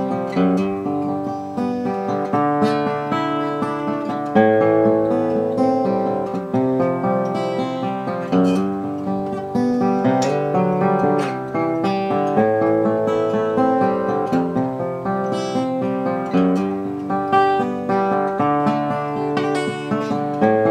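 A 1945/46 Gibson LG-2 small-body flat-top acoustic guitar played solo, picked chords and single notes ringing out in a steady flowing rhythm.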